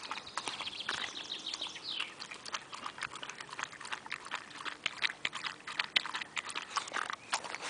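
A dog lapping water from the shallow plastic trough of a travel water bottle: quick, repeated wet laps of the tongue.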